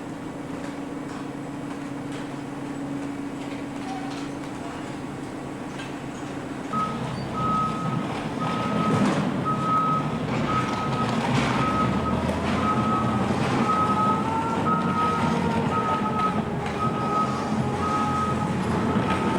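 Steady machinery hum, then about seven seconds in a vehicle's reversing alarm starts beeping about once a second over a louder running engine whose pitch rises and falls.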